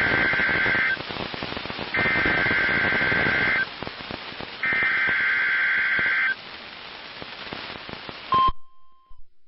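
Emergency Alert System SAME header played over NOAA Weather Radio: three identical harsh digital data bursts, each about a second and a half long with about a second between them, over steady radio static. Near the end, a short steady alert tone starts and is cut off abruptly.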